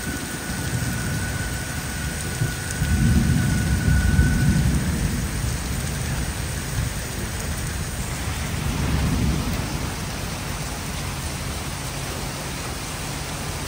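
Heavy rain pouring down in a thunderstorm, with low rumbles of thunder swelling about three seconds in and again around nine seconds.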